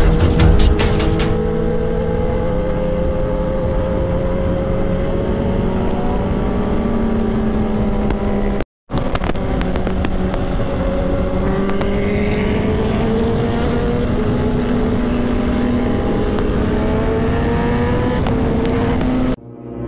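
Kawasaki ZX-10R's inline-four engine running under way in gear, heard from on the bike, its pitch holding fairly steady and then slowly rising as it pulls. The sound cuts out for a moment about nine seconds in.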